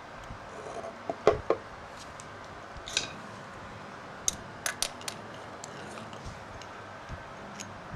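Handling noises from close work on a disassembled carburetor: a few knocks about a second in, then several sharp light clicks of small hard parts between four and five seconds in, over a steady hiss.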